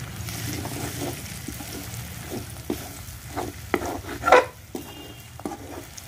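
A perforated steel spoon scraping and stirring around a steel kadai while onions and ground spices fry and sizzle in ghee: the masala being roasted. Repeated scrapes over the sizzle, the loudest about four seconds in.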